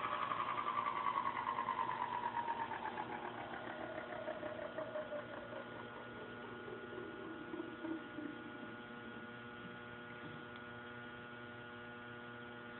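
20 hp three-phase Baldor Super E electric motor spinning down. Its whine falls steadily in pitch and fades over about nine seconds, with a rapid rough pulsing from a failing opposite-drive-end ball bearing that is worn but has not yet seized. A steady hum is left once it has slowed.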